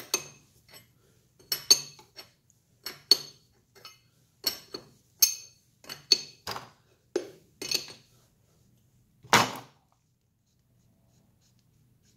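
Steel wrench clinking against the prime valve's hex nut on a Titan 440 airless paint sprayer as the valve is loosened: about a dozen sharp metallic clicks, roughly one or two a second, then one longer clatter about nine seconds in.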